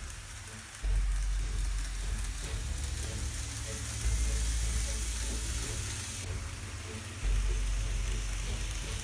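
N-scale model trains running on the layout track: a steady hissing rolling noise. A low rumble comes in suddenly about every three seconds.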